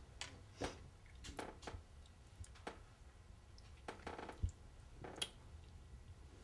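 Faint, scattered clicks and small handling noises as a ketchup bottle is handled and a finger is licked, with a low knock about four and a half seconds in and a sharper click just after five seconds.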